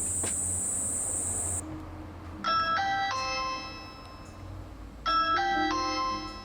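Doorbell chime ringing a short three-note tune twice, over low background music. A steady high hiss fills the first second and a half.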